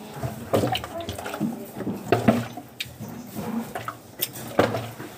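Voices talking, broken by a few sharp clicks and taps.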